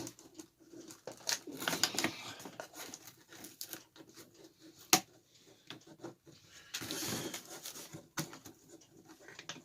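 Packaging being handled and cut with scissors: rustling cardboard and plastic with scattered clicks, and one sharp snap about five seconds in.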